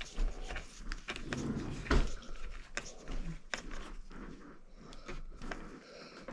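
Light plastic clicks and knocks from a motorcycle helmet's face shield and side mechanism being handled and fitted back on, with one louder knock about two seconds in.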